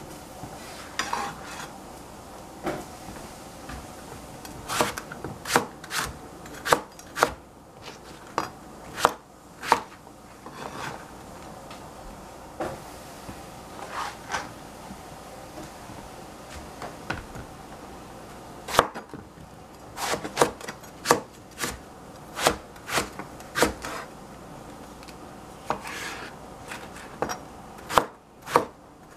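Chef's knife chopping long purple eggplant on a plastic cutting board: sharp knocks of the blade striking the board, coming in uneven runs with short pauses between them.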